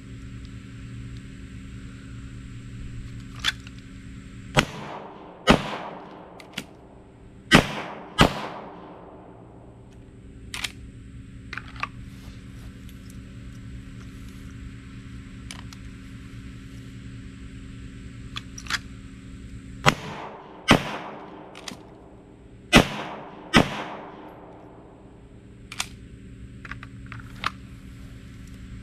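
Sig Sauer P320 Spectre Comp 9mm pistol fired in four quick pairs of shots, the two shots of each pair a little under a second apart, each shot ringing out with an echo. Fainter single pops fall between the pairs.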